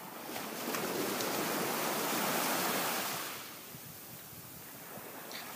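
Outdoor rushing noise of wind and surf. It is louder for the first three seconds, then eases off.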